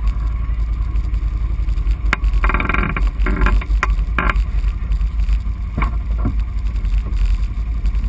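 ATV engine idling with a steady low rumble. A few short noisy bursts come in about two to four seconds in and again near six seconds.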